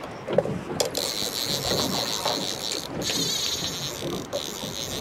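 Fly reel's click-pawl drag ratcheting in a rapid run of clicks while a hooked fish is reeled in, stopping briefly about three seconds in, over wind noise.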